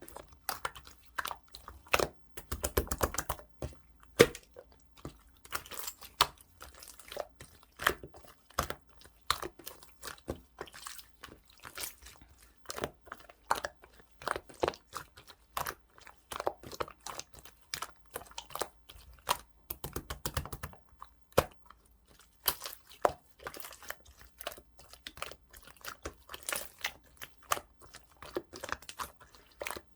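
Opaque slime being squeezed and poked by hand, giving many small sticky pops and clicks at an uneven pace, with denser crackling stretches about three seconds in and again around twenty seconds.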